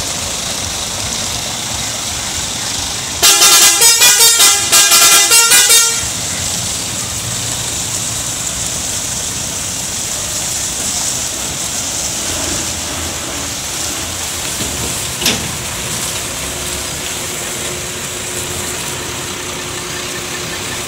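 Scania R450 truck's horn sounded in two quick runs of rapid short blasts about three seconds in, over the steady running of the truck as it pulls away with its tanker trailer. A single sharp click comes about fifteen seconds in.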